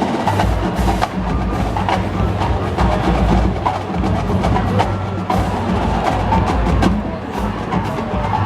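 Marching band percussion: sharp, irregular stick clicks and drum hits over a steady stadium crowd din.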